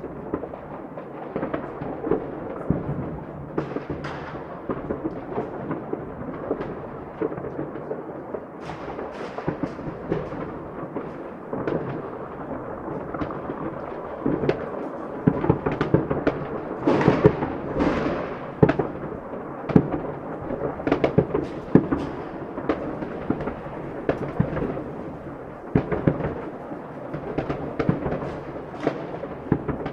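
Fireworks display: a continuous rumble of booms with many sharp crackling pops, at its busiest and loudest about halfway through.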